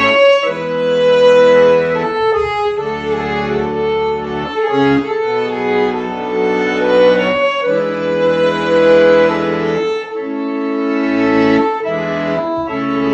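Slow instrumental music of long held chords that change every couple of seconds.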